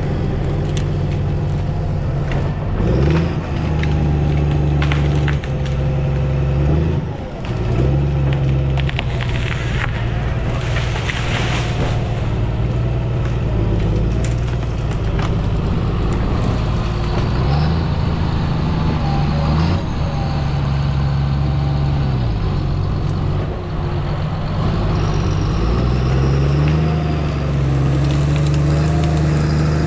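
John Deere grapple skidder's diesel engine running and revving up and down as the machine pushes the sat-back tree over and grapples it. Wood cracks and branches break for a few seconds around the middle.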